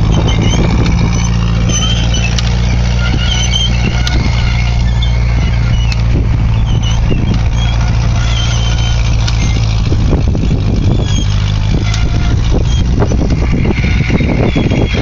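Tractor engine running steadily while pulling a disc, with scattered knocks over the even engine note.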